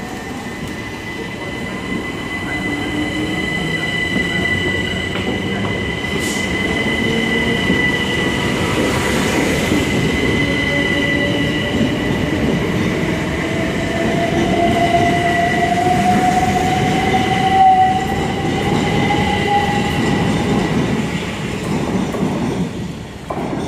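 Southeastern Class 375 electric multiple unit running along the platform, its wheels and running gear rumbling under a steady high whine. A second whine climbs in pitch through the second half as the train's traction motors accelerate it away.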